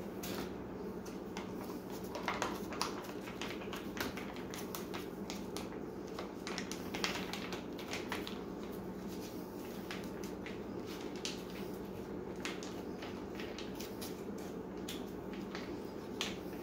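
Crinkling and crackling of a foil-laminate MRE retort pouch being squeezed and kneaded to push out beef macaroni: a string of irregular sharp crackles over a steady low hum.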